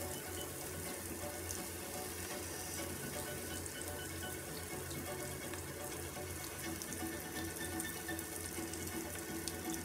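Meat and seafood sizzling steadily on a tabletop electric grill plate.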